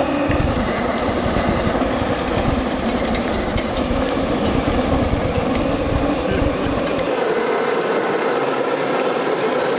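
Electric 1/10-scale RC rock crawler pulling a weight sled over dirt: its motors whine steadily while the tires spin and throw dirt. A low rumble underneath drops away about seven seconds in.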